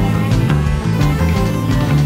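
Background music with a steady beat and a bass line, with guitar-like plucked notes.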